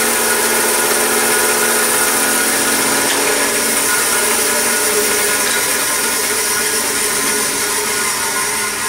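Bandsaw running at full speed after being switched on: a steady hum from the motor and blade with a high whine over it.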